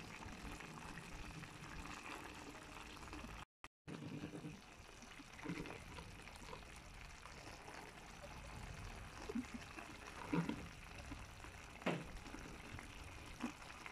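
Fish and chayote stew simmering gently in its broth in a pan: a quiet steady hiss with a few soft bubble pops, briefly cutting out about three and a half seconds in.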